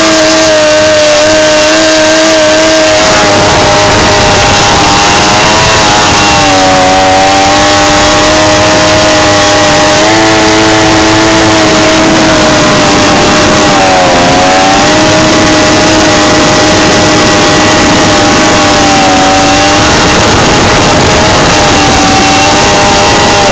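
100 hp outboard motor on a 12-foot jon boat running hard, loud and steady under a heavy rush of noise. Its pitch dips briefly about seven seconds in and again around fourteen seconds in, then recovers.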